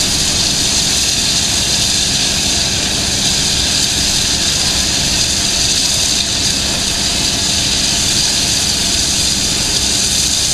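Class 01.10 steam locomotive letting off steam with a loud, steady hiss that does not let up, while moving slowly.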